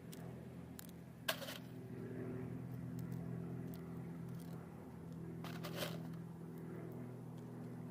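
A steady low hum runs throughout, with two short gritty rattles, one about a second in and one near six seconds.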